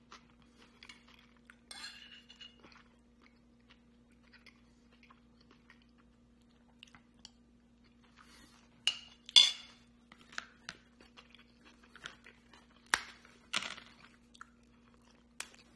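Close mouth sounds of a man chewing and crunching a fish ceviche tostada, with a few sharp clicks and clinks of spoon or plate, the loudest about nine seconds in and again around thirteen seconds. A faint steady hum runs underneath.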